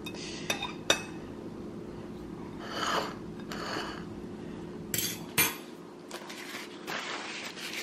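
Metal fork clinking and scraping on a ceramic plate as food is pushed into place: sharp clinks about half a second and a second in and twice more around five seconds, with softer scraping between, over a low steady hum.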